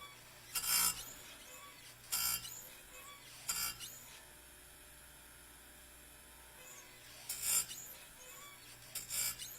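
Metal file scraping across chainsaw chain rakers (depth gauges) in short single strokes, lowering them flat: three strokes about a second and a half apart, a pause of about three seconds, then three more near the end.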